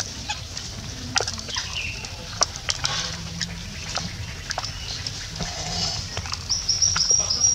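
Animal calls: scattered short chirps and clicks, then a high, thin squeal lasting about a second near the end.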